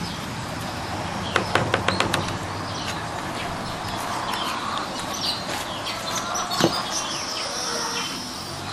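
Small birds chirping over steady outdoor background noise, with a quick run of sharp clicks and knocks about a second and a half in and one more sharp knock near the end.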